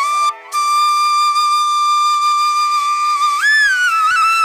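Background music: a flute melody holding one long steady note after a brief break, then leaping up and sliding back down near the end.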